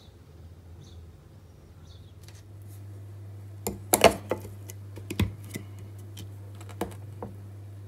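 Sharp knocks and taps of a wooden cutting board being handled on a countertop, the loudest about four seconds in, over a steady low hum that starts a little before them. Faint ticks come first.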